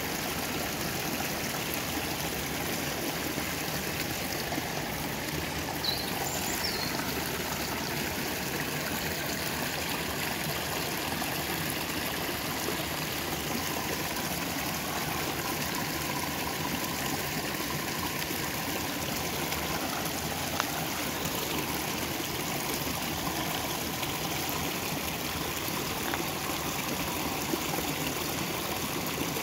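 Steady rushing of a nearby stream, with a few faint brief ticks over it.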